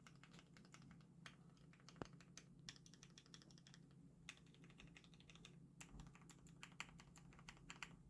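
Typing on a custom acrylic stacked mechanical keyboard with Cherry MX RGB Black linear switches: quick runs of keystrokes broken by short pauses.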